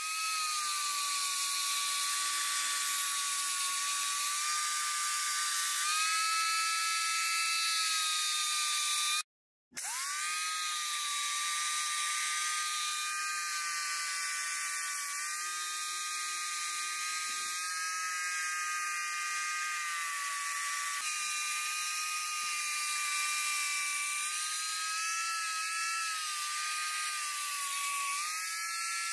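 Electric angle grinder running a fine-grit sandpaper disc on a backing pad over a steel knife blade: a steady high motor whine whose pitch wavers slightly. It spins up at the start, cuts off abruptly about nine seconds in, and spins up again half a second later.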